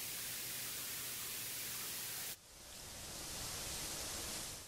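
Steady, even hiss of recording noise and nothing else. It drops out briefly about halfway, returns slightly changed, and cuts off abruptly at the end.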